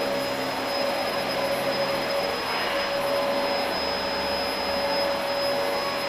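Dyson DC04 upright vacuum cleaner running steadily while vacuuming carpet: a constant rush of air with a steady whine from the motor.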